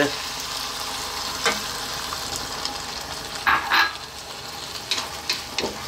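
Tomato-and-vegetable chili sizzling steadily in a hot frying pan just after water is poured in. A few short knocks come a little over a second in, twice more past the middle, and a few near the end.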